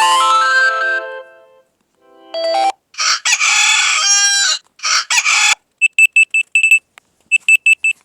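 Alarm ringtones playing one after another on a Dexp K38 Android phone's speaker. A melodic synth tune ends about a second in, a recorded rooster crowing follows, then rapid high-pitched beeps come in two short bursts near the end.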